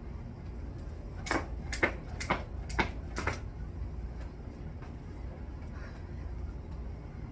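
Jump rope skipping: five sharp slaps of the rope or landings, about two a second, over a steady low rumble.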